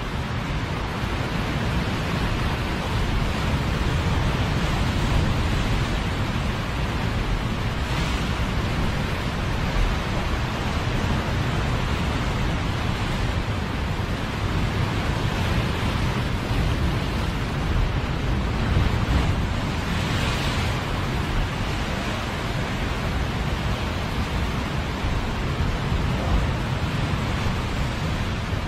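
Ocean waves breaking and washing against the rock cliff below, with steady wind rumble on the microphone. The surf swells louder briefly about eight seconds in and again around twenty seconds.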